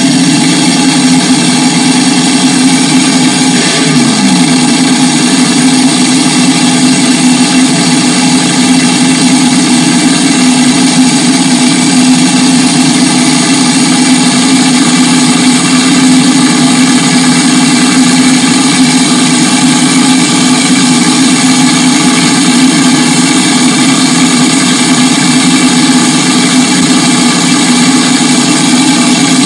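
Racing car engine running loud and steady at an unchanging pitch, with a brief falling tone about four seconds in.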